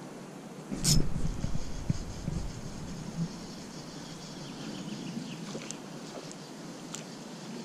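Rod handling about a second in: a thump and rumble with a sharp click. Then a Penn Conflict II 1000 spinning reel is cranked, its gears giving a faint rapid ticking.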